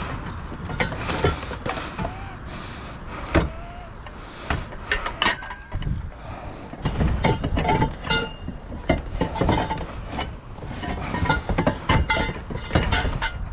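Scrap metal clanking and rattling in a string of knocks, some with a short ring, over a low vehicle rumble.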